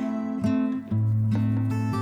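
Background music: gently plucked acoustic guitar, with notes changing about every half second.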